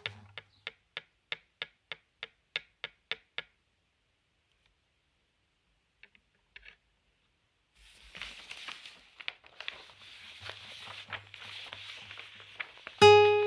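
Objects handled as percussion: a run of sharp, evenly spaced taps, about three a second, that stops about three and a half seconds in. After a pause with a few faint clicks, a steady rustling and scratching sets in around eight seconds. Near the end a single plucked acoustic guitar note rings out loudly.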